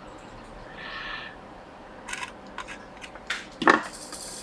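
A few light clicks and taps of small tools being handled at an electronics repair bench, with a short soft hiss about a second in.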